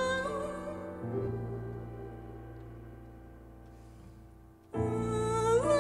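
Live jazz ensemble with keyboards: a held chord fades away over about four seconds, with a low note coming in about a second in. The full sound comes back in abruptly and loudly near the end.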